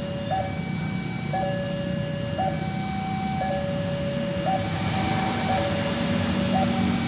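Railway level-crossing warning siren sounding a two-tone hi-lo wail, switching between a higher and a lower pitch about once a second. A low rumble builds underneath near the end.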